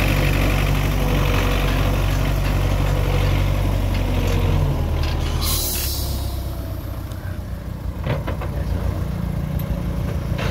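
Belarus (MTZ) tractor's four-cylinder diesel engine idling steadily. About halfway through it turns quieter and rougher, with a short hiss of air at that point.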